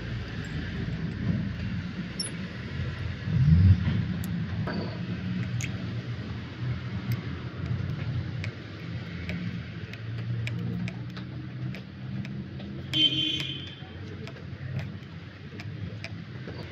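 A low, steady motor or engine hum, swelling about three and a half seconds in, with scattered light clicks and a brief high tone about thirteen seconds in.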